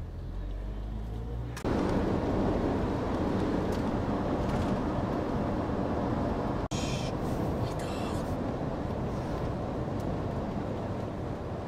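Inside the cabin of an Iveco van driving at speed: steady engine, road and wind noise. It starts as a quieter low rumble and jumps to a much louder rush about two seconds in.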